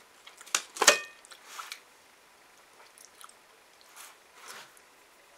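A beef jerky packet being handled: two sharp crinkles about half a second and one second in, followed by a few faint rustles.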